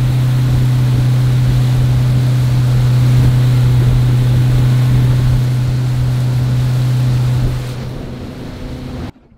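Yamaha 70 hp outboard motor running steadily at speed with a constant drone, over rushing water from the wake and wind. It eases off near the end and cuts off abruptly about nine seconds in.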